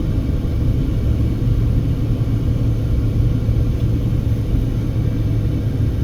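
Steady low rumble of a car's engine and road noise, heard from inside the moving car as it climbs a grade.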